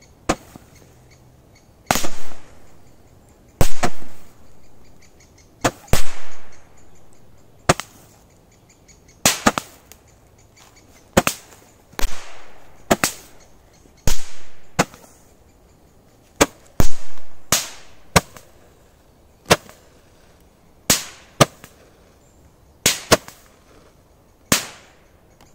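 Handheld "Sterminator" Roman candle firing shot after shot, a sharp pop about every one to two seconds, some in quick pairs. Many pops trail off in a short fading hiss.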